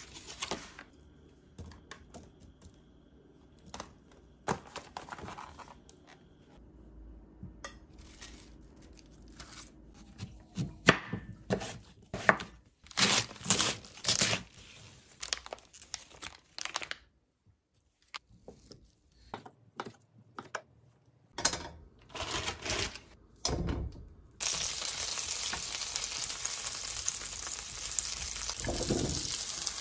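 Kitchen prep sounds: a clear plastic clamshell of cherry tomatoes crinkling as it is opened, then a chef's knife chopping cabbage on a wooden cutting board in quick runs of knocks. About five seconds before the end, cherry tomatoes go into melted butter in a frying pan and a steady sizzle sets in.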